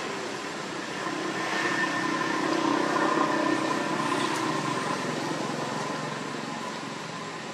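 A motor vehicle passing by: a rushing engine and road noise with a faint steady hum that swells about a second in, peaks near the middle and fades away.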